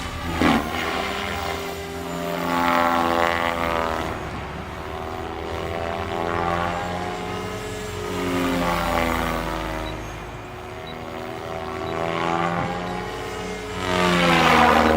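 Electric SAB Goblin 500 RC helicopter in flight, its rotor and motor whine rising and falling in pitch and loudness as it manoeuvres. It is loudest about three seconds in, about nine seconds in and near the end.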